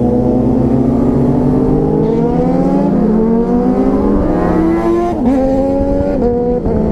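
Motorcycle engine accelerating, its pitch climbing steadily, then dropping sharply about five seconds in at a gear change and holding steadier after.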